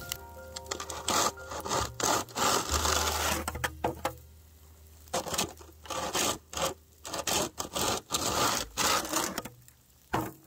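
Rough rasping strokes in quick succession, a few longer ones at first, then a run of short strokes about three a second that stops near the end.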